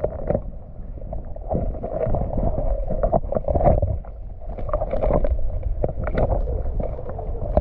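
Muffled sound of creek water heard by a camera held under the surface: dull churning and sloshing with many irregular soft knocks.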